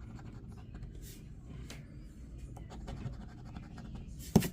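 Scratching the coating off a crossword lottery scratch-off ticket in short strokes, with one sharp tap near the end.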